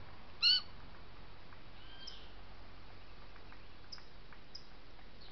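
Birds calling: one short, loud call about half a second in, then a few faint high chirps over steady background hiss.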